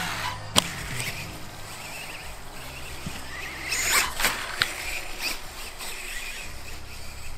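Losi Promoto-MX quarter-scale RC dirt bike's electric motor whining and revving in short bursts as it tears across grass, with a sharp thud about half a second in as it lands a jump. A second run of revs and sharp knocks comes around the middle as it pulls a wheelie.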